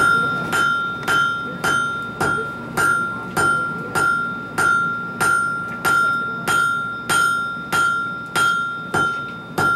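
Blacksmith's hammer striking red-hot steel on an anvil in a steady rhythm, a little under two blows a second, each blow ringing out at one clear pitch. The hot bar is being flattened into rose petals.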